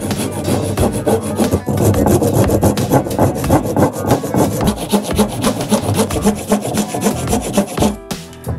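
Quick, regular strokes of a file or rasp scraping back and forth over a workpiece during knife repair. The strokes stop near the end.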